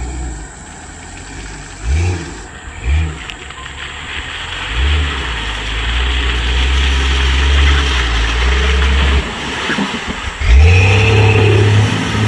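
Off-road vehicle engine revving: two short blips about two and three seconds in, then held at high revs for several seconds, dropping off briefly and revving hard again near the end.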